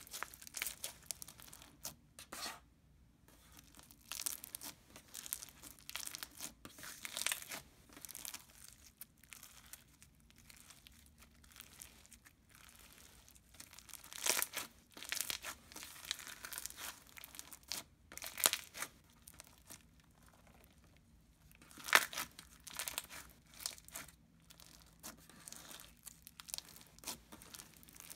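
Blushing BB Slimes' Mermaid Lagoon, a blue clear glue-based slime, being squished and stretched by hand: irregular sticky crackling and crinkling, with a few louder pops in the second half.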